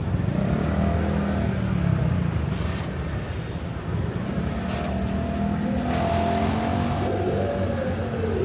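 Urban street ambience dominated by motor traffic: a steady low rumble of car engines and tyres, with a vehicle passing near the end and faint voices.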